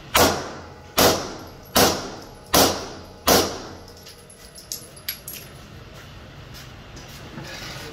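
Glock 34 9 mm pistol fired five times at a steady pace, about one shot every 0.8 s, each shot with a short echo. A few light clicks follow.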